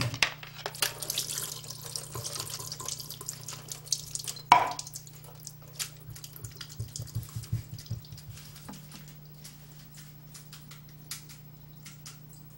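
Liquid from canned diced tomatoes and green chilies pouring through a plastic colander and splashing into a stainless steel sink, with one sharp clank about four and a half seconds in. After it, the colander drips and taps, the drips thinning out toward the end.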